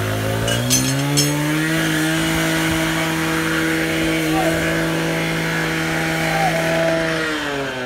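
An engine revs up over the first second and a half, holds a steady high speed, then winds down near the end. A few light clicks come about a second in.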